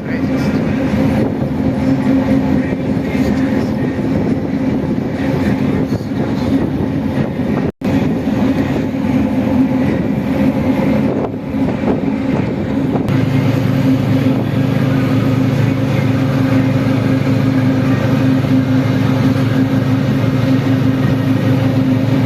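A tour boat's engine running steadily, heard on board as a constant droning hum. The sound drops out for an instant about 8 seconds in, and a deeper hum joins about 13 seconds in and holds.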